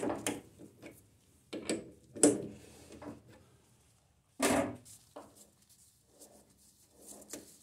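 Steel rod being threaded by hand in a stopped lathe's chuck: a few irregular scraping and clunking metal sounds as the threading wrench and chuck are worked round, the loudest about two and four and a half seconds in.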